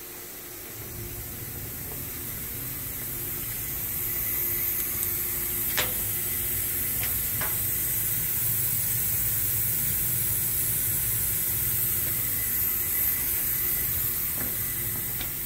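Cooling fans of a CNC machining center's electrical cabinet running up as the machine is powered on: a steady rush of air that comes in about a second in and builds over the next few seconds, with a faint steady hum and a couple of sharp clicks.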